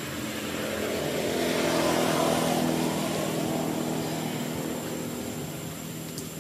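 Engine of a passing vehicle: a low engine hum that swells to its loudest about two seconds in, then slowly fades away.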